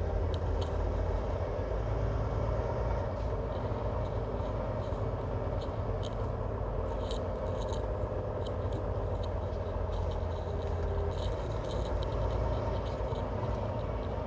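Semi truck's engine running, heard inside the cab as a steady low drone, with scattered light ticks and rattles.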